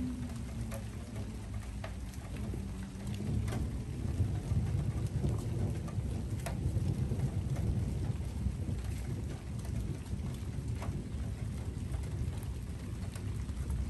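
Steady rain during a thunderstorm, with thunder rumbling low after a lightning flash and growing heavier a few seconds in. Scattered sharp drip ticks sound over the rain.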